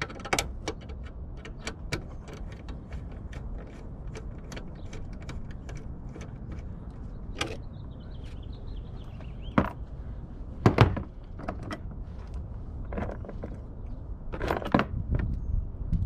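Ratchet wrench with a 10 mm socket clicking as it undoes the bolts of a Toyota Prius wiper linkage assembly, a run of small ticks in the first half. A few louder metal clacks follow as the loosened bolts and parts are handled.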